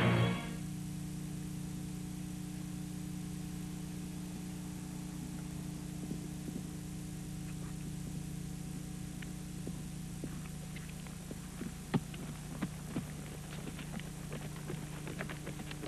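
A steady low electrical hum, with faint scattered clicks and rustles that get thicker in the second half and one sharper click about twelve seconds in.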